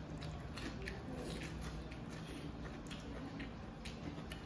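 Close-up eating sounds of people chewing by hand-fed mouthfuls: scattered soft wet clicks and mouth smacks, over a low steady hum.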